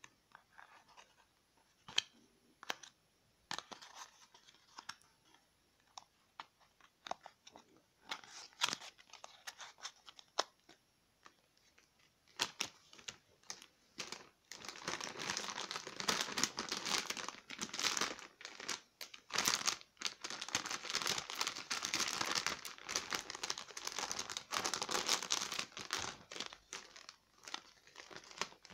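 Thin plastic pouches being handled and opened by hand: scattered rustles and clicks at first, then continuous crinkling of plastic film from about halfway through.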